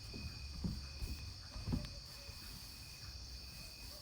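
Quiet background with a faint, steady high-pitched drone that pulses slightly, and a few soft low thumps in the first two seconds.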